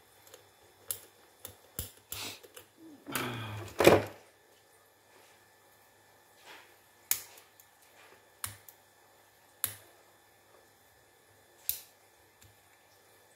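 Small hand tools clicking and tapping against a wireless microphone's battery tube during bench repair work, in scattered single clicks, with one longer, louder rasp about three seconds in.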